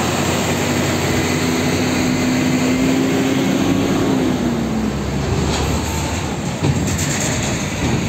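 Heavy diesel fuel tanker trucks and road traffic: a loud, steady rumble of engines and tyres, with an engine note that sinks in pitch around the middle and a sharp knock near the end.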